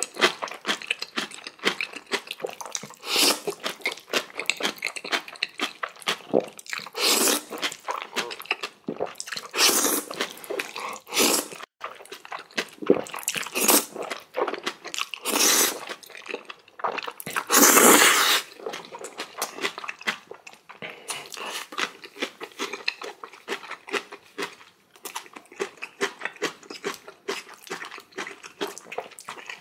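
Close-miked eating of jajangmyeon noodles and spicy kimchi: continuous wet chewing and crunching, broken by several louder, longer noodle slurps, the loudest a little over halfway through.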